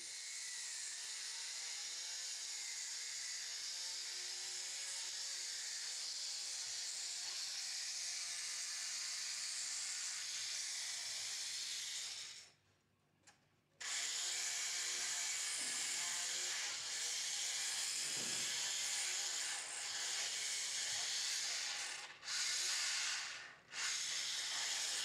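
Motorized equine dental float with a rotary disc grinding horse incisors during a minor incisor correction: a steady high grinding hiss that cuts out for about a second midway and twice briefly near the end.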